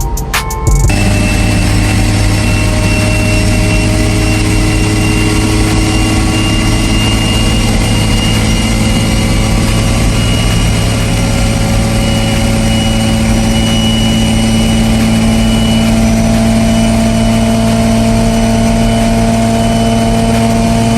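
Mitsubishi 3000GT's V6 engine running steadily at a nearly constant pitch, with no revving up or down. It cuts in sharply about a second in.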